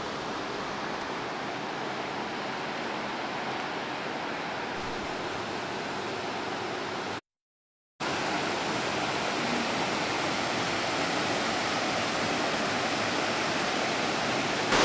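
Rushing river water through the rapids of the South Esk River in Cataract Gorge, a steady even rush. It cuts out for most of a second about seven seconds in, then comes back louder.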